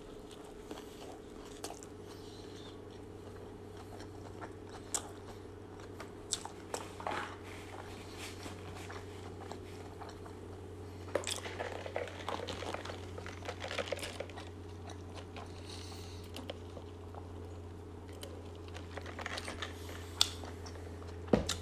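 Biting into and chewing a McDonald's Big Mac: scattered mouth clicks and crunches, thickest about halfway through and again near the end, over a steady low hum.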